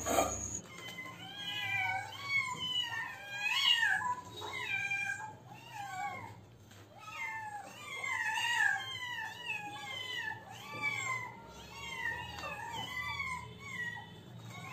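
A litter of kittens meowing over one another, many short rising-and-falling cries a second with no pause: hungry kittens begging for food.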